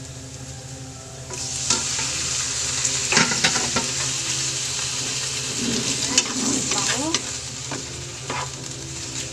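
Cubed pork belly dropped into hot oil with sautéed garlic and onion in a nonstick pan: sizzling starts suddenly about a second in and keeps on, with a wooden spatula scraping and knocking against the pan as the pork is stirred.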